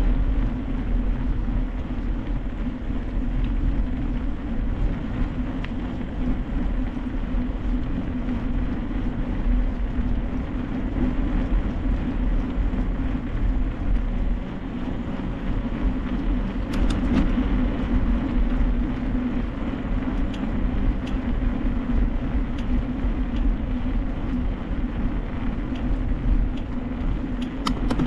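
Mountain bike rolling along a road: a steady tyre hum and wind rumble on the microphone, with a few sharp rattling clicks.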